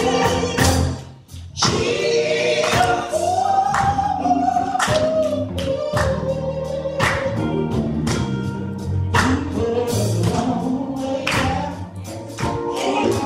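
Live gospel band playing: sung vocals with held notes over drums, electric guitar and keyboard. The music drops out briefly about a second in, then comes back in.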